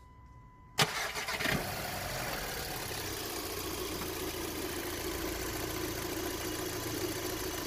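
Volkswagen Passat B6's four-cylinder FSI petrol engine starting: it cranks and catches about a second in, then settles into a steady idle. This is its first start after a coolant hose connector was replaced and the coolant refilled.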